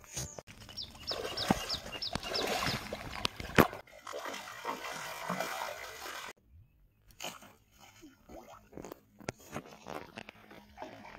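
A hooked rohu thrashing and splashing in shallow water at the bank as it is fought and grabbed by hand, mixed with scattered clicks and knocks. A quick run of about seven ticks comes a second in, and one sharp knock is the loudest sound about three and a half seconds in.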